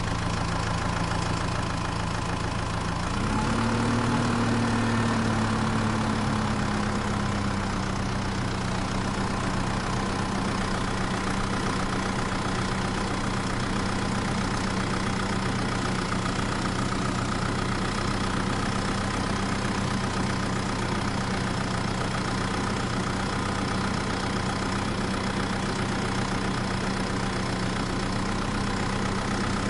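Tractor engine running at a steady idle. About three seconds in it revs up briefly, then eases back down over a few seconds and holds even.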